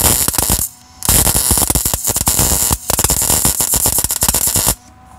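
MIG welder arc crackling while tack-welding a steering-rack bracket onto a steel truck frame. The arc breaks off about two-thirds of a second in and strikes again about a second in. It stops for a moment near three seconds and cuts off just before the end.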